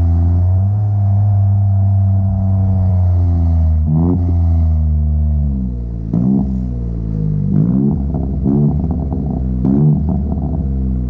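Chevrolet Onix RS's 1.0 turbo three-cylinder engine through an aftermarket sport exhaust with a Luzian LA011 intermediate muffler, held at a steady note for about four seconds, then revved about five times in quick succession, each rev rising sharply and falling back.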